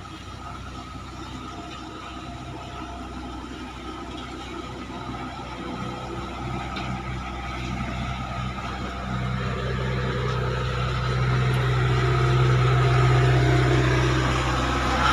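Klotok river boat engine running steadily, growing louder over about ten seconds as it draws closer.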